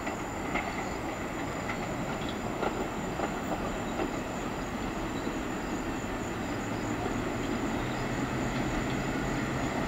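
Staten Island Railway R44 subway train approaching along the track, its running noise slowly growing louder. A few sharp clicks sound in the first four seconds, and a low hum comes in about seven seconds in.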